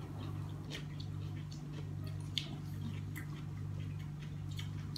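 Kitchen knife carving a roast duck, with scattered small crackles and clicks as the blade cuts through the skin and meat, over a steady low hum.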